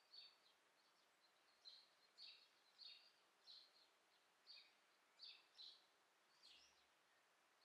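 A small bird chirping faintly, short high chirps repeated irregularly about every half second to a second, over a quiet hiss of outdoor ambience.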